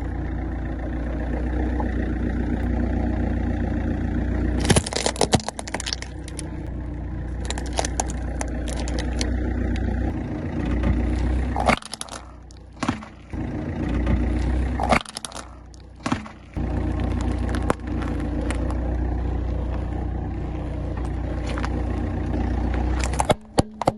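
A car's engine running slowly while its tyres roll over and crush objects, giving clusters of sharp cracks and crunches, with single cracks now and then and a last burst near the end.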